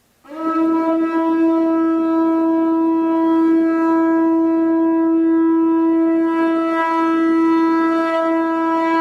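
Conch shell trumpet blown in one long, steady note, starting after a short silence and held without a break.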